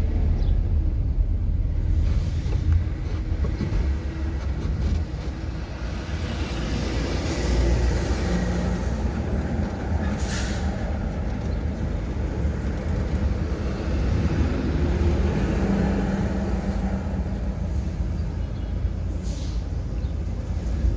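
Car driving, heard from inside the cabin: a steady low engine and road rumble, with a short hiss about halfway through as a large truck passes close alongside.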